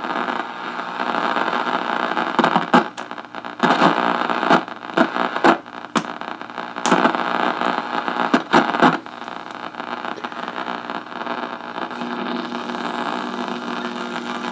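Radio-frequency interference heard through an AM receiver's speaker on the broadcast band near 1500 kHz: a harsh static hiss that swells and drops in irregular bursts, with a few sharp clicks, settling near the end into a steadier hum. The noise drowns out the AM station, and a makeshift ground wire to a sink faucet has not cleared it: still pretty unintelligible.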